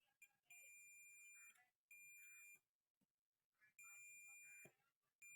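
Multimeter continuity buzzer beeping as the probes touch across a wire, three beeps of about a second each and a short one near the end, one steady high tone. The beep signals an unbroken connection: the wire is fine.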